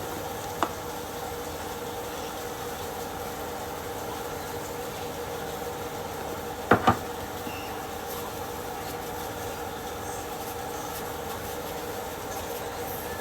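Steady hum of a kitchen range-hood exhaust fan, with a light click early on and two sharp knocks in quick succession about seven seconds in.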